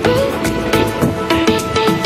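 Instrumental music: a melody of held notes that bend in pitch, over a steady beat.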